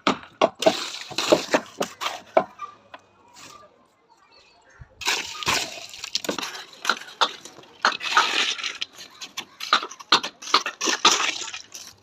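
Hand tools knocking and scraping on building material: a run of sharp knocks, a pause of about two seconds, then denser rapid knocking and scraping.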